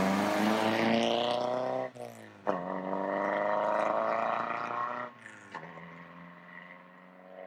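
Alfa Romeo 1900 C Super Sprint Zagato's twin-cam four-cylinder engine accelerating hard through the gears. The pitch climbs, drops at an upshift about two seconds in, climbs again, and shifts once more about five seconds in. After that it runs fainter and steady as the car pulls away.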